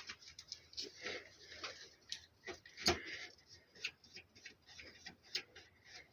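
Irregular light clicks and taps, a few a second, with a louder knock about three seconds in.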